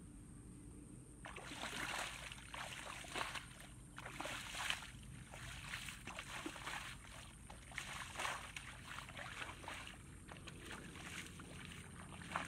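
Bare feet sloshing and splashing through shallow muddy water, one step after another, starting about a second in.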